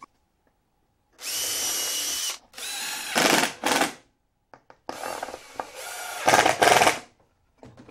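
A cordless drill runs steadily for about a second, boring a pilot hole in plywood. Then a Makita 18V cordless impact driver runs in two bursts, hammering screws home into the plywood blocks.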